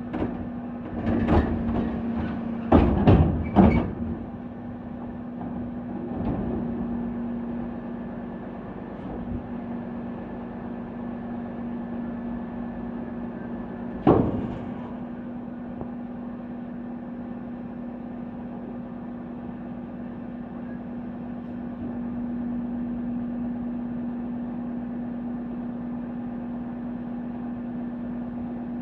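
McNeilus rear-loader garbage truck with a bin lifter tipping a 660-litre wheelie bin: several loud clattering bangs in the first few seconds as the upturned bin and its load empty into the hopper, then one sharp bang about 14 seconds in as the bin comes back down. Under it all the truck's engine and hydraulics hum steadily.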